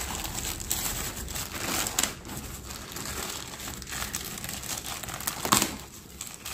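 Plastic courier mailer and its packing tape crinkling and crackling as fingers pick and pull at it to get it open, with one sharp, louder crackle about five and a half seconds in.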